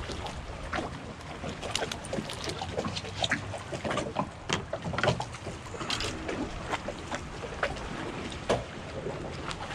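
Water lapping and slapping against a small skiff's hull, with scattered irregular clicks and knocks of bait and tackle being handled on board.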